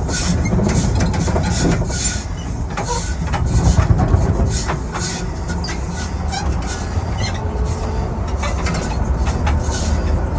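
Scania bus running with a steady low rumble, overlaid by irregular clunks and rattles throughout: the suspension noise that is being tracked down.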